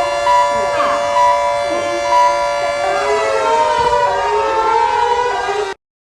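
Civil-defense-style alert siren: several steady tones sounding together, with a note pulsing about once a second. In the last few seconds several pitches glide down and up, then the sound cuts off abruptly near the end.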